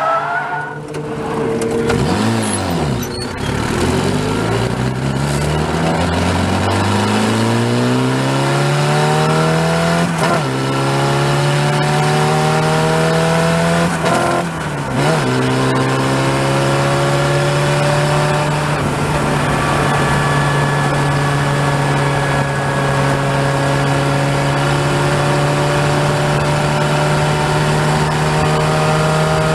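Open-wheel race car's engine heard from the cockpit under hard acceleration out of a corner. It comes off the throttle in the first couple of seconds, then climbs steadily in pitch, dipping briefly twice, about ten and fifteen seconds in, as it shifts up. From there it holds high revs on the straight.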